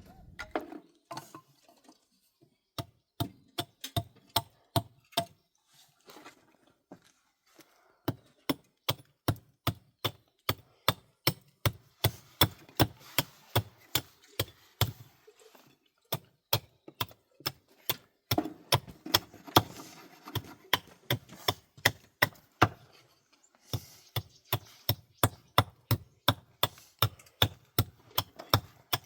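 Hammer blows, a few scattered strikes at first, then fast regular runs of about two to three blows a second with brief pauses between runs.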